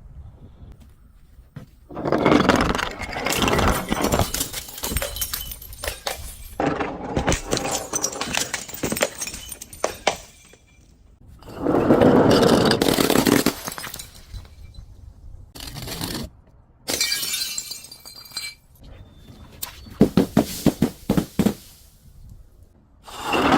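Glass being crushed and shattering in a series of crunching bursts, each lasting a second or two, with a run of quick sharp cracks about twenty seconds in.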